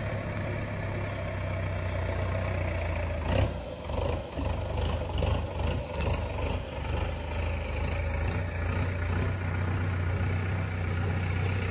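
Sonalika 60 tractor's diesel engine running steadily while the tractor tries to work its way out of deep paddy-field mud, with a few uneven surges about halfway through.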